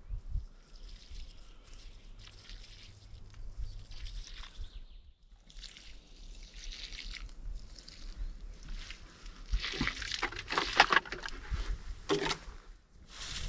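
Water poured from a large plastic bottle onto soil and plants, trickling and splashing in spells with a short break about five seconds in, loudest around ten seconds in.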